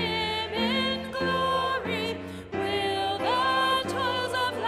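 A woman singing a hymn into a microphone, holding notes with vibrato, over steady instrumental accompaniment.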